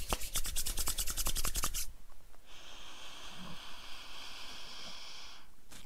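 Palms rubbing briskly together, working beard butter between the hands, for about the first two seconds. Then a long, steady breath in through the nose with the hands cupped over the face, smelling the butter.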